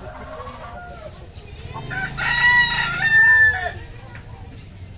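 A rooster crows once, a loud call of about two seconds in two parts, starting near the middle, with soft hen clucking before it.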